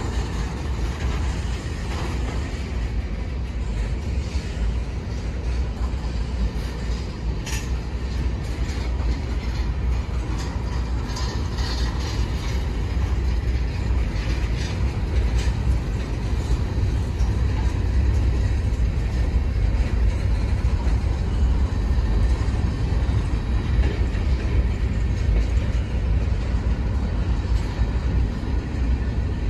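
Freight train of covered hoppers and tank cars rolling past, a steady rumble of steel wheels on the rails with clickety-clack over the joints. A few brief sharper metallic sounds come through in the first half.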